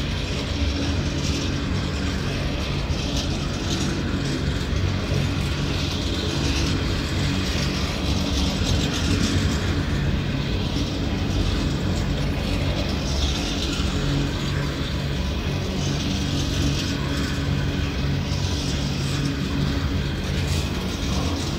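A train of empty coal hopper wagons rolling past, a steady rumble of steel wheels and running gear on the track.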